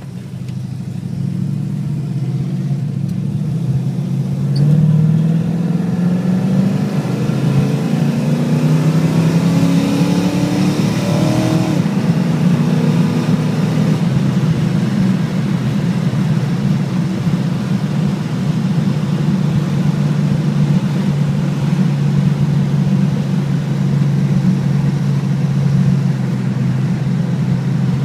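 1968 Dodge Charger's 440 V8 through a Flowmaster 40 Series exhaust, heard from inside the cabin. About four seconds in it gets louder and its pitch climbs for several seconds under acceleration. Around twelve seconds it drops in pitch as the automatic transmission shifts up, then holds a steady cruise.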